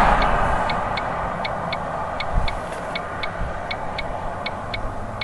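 Rapid, regular ticking, about four short ticks a second, over a low steady rumble. A louder rushing noise fades away in the first second.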